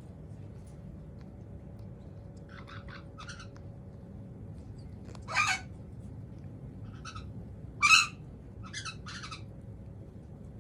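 A cockatoo making short, noisy bursts of sound: a few soft ones, a louder one around halfway, and the loudest about eight seconds in, followed by a couple of softer ones.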